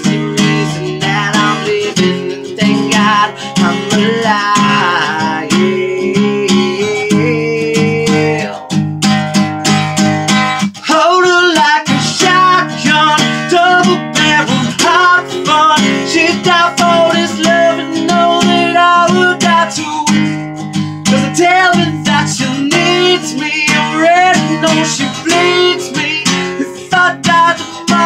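A man singing with wavering, held notes over a strummed Takamine acoustic guitar: a solo acoustic song performance.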